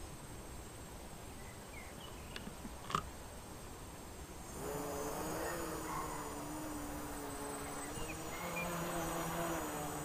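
A small quadcopter's brushless motors (Gaui 1050) and propellers spin up about halfway through and keep running in a steady buzzing hum whose pitch wavers slightly as it flies. Before that, a single sharp click is heard about three seconds in.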